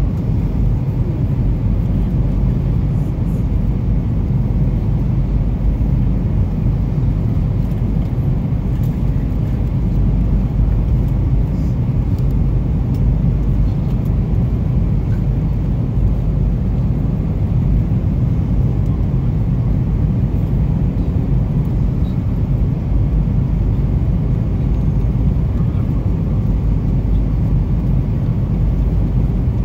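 Jet airliner cabin noise on final approach: a steady, unbroken roar of engines and rushing air, heavy in the low range, heard from a window seat.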